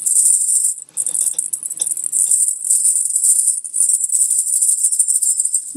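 A bunch of small jingle bells tied to a hand puppet's paw, shaken steadily and jingling, with a brief pause about a second in.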